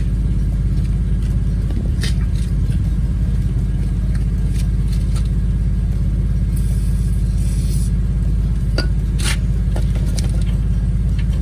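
A steady low rumble with a few sharp clicks and knocks of metal parts and tools being handled, and a brief hiss about seven seconds in.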